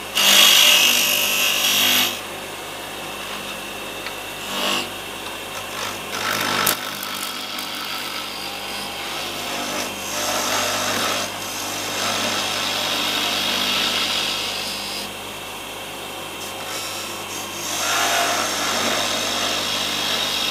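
Wood lathe running with a steady hum while a turning tool cuts a small spindle blank, the scraping hiss of shavings coming in bouts, loudest in the first couple of seconds. The cuts are forming a tenon on the end of a bead blank.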